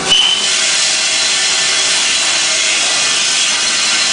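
HAAS CNC lathe running in a machining cell: a steady hiss of machining with faint steady tones, and a brief high tone right at the start.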